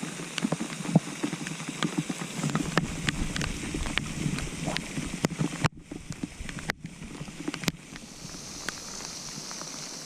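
Heavy rain, with many drops ticking irregularly close to the microphone over a steady wash of rainfall. The sound cuts out briefly twice about halfway through, and a steady hiss takes over near the end.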